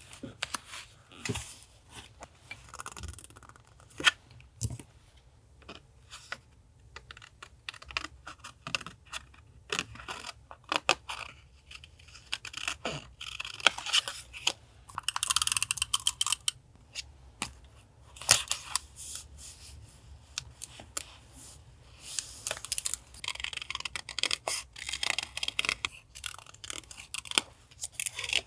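Paper being handled for journal collage: crinkling and rustling with many short sharp clicks and taps, and longer stretches of tearing about halfway through and again near the end.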